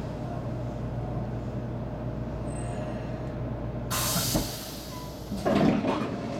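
Steady low hum inside a stopped 300 series Shinkansen car. About four seconds in comes a short, sharp hiss of released compressed air, after which the low hum drops out. Louder, uneven noise follows near the end.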